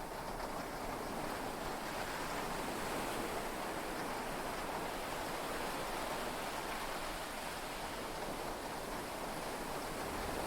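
Heavy rain and sea waves heard from inside a yacht cabin during a storm at sea: a steady rushing wash that swells gently and eases again, with no thunder clap.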